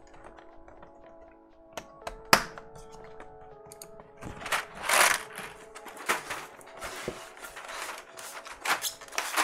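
Plastic clicks and clatter of a clear keycap tray full of keycaps being handled and lifted away, with a louder rustle about five seconds in, over quiet background music.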